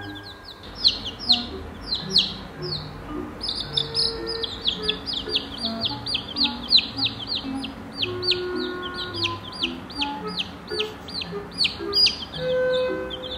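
Chicks peeping constantly: a quick run of short, high, falling cheeps, about three a second, over soft background music.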